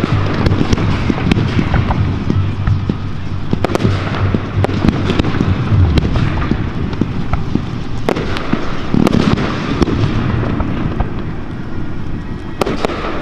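Aerial firework shells bursting in quick succession, filmed close to the launch site: a steady run of sharp bangs over a continuous crackle of burning stars.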